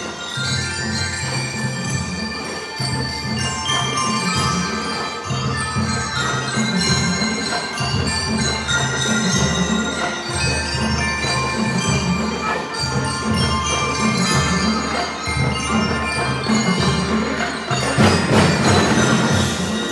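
Drum and lyre corps playing a Christmas tune: bell lyres ringing out the melody over a steady marching-drum beat, the band growing louder and fuller near the end.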